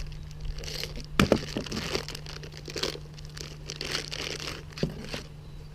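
Hands handling a ball-end hex key (Allen key) set from a bicycle tool kit: rustling and crinkling, with a sharp click about a second in and another near the end.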